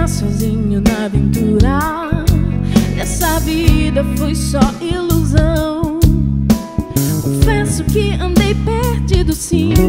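Live gospel worship music: a band with drums and guitar playing under a wavering lead melody.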